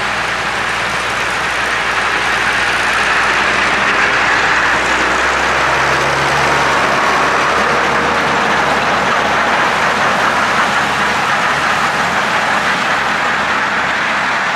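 Ford 8210 tractor's six-cylinder diesel running steadily under load while its rear PZ CM 270 drum mower cuts grass, the spinning drums giving a steady rushing whir as the tractor drives past close by.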